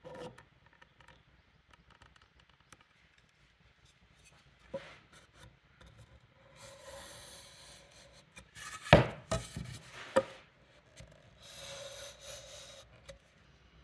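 Lines being marked out on timber: a marking tool drawn across the wood in two scratchy strokes. Between the strokes come a few sharp knocks of tools on the wood, the loudest sounds.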